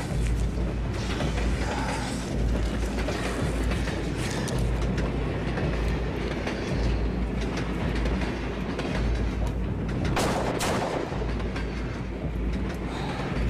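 Steady low rumbling drone from the drama's soundtrack, with a brief rushing noise about ten seconds in.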